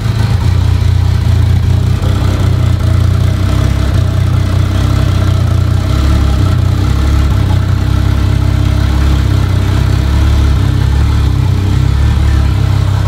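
Toyota 2JZ 3.0-litre inline-six with a big single turbo idling steadily and loudly, with a deep, even rumble. This is the freshly built engine's first run on a rough base map, before its idle has been set up.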